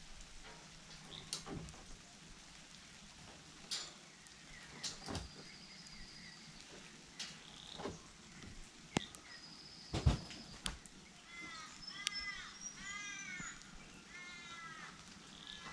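Scattered sharp taps and knocks, with birds calling. From about eleven seconds in, a crow-like bird gives a series of harsh, arched calls, four or five in a row.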